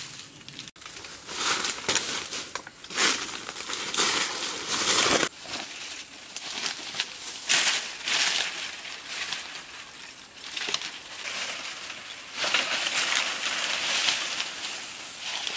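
Dry banana leaves and leaf litter crackling and crunching in irregular bursts as someone pushes through and handles them, with the heaviest crackling in the first few seconds and again near the end.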